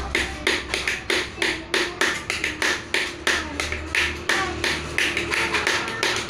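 Lion dance percussion: a fast, steady beat of sharp, ringing strikes, about three to four a second.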